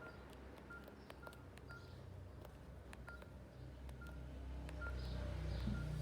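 Samsung GT-E1280 ringtone playing faintly from the phone's small speaker: a pattern of short, high electronic beeps with light clicks. A low background rumble swells near the end.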